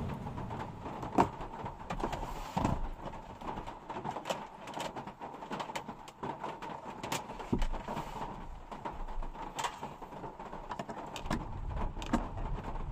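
Scattered light clicks and knocks of small objects, a phone and a desk fan, being handled and set down on a countertop inside a van, over a faint steady hum.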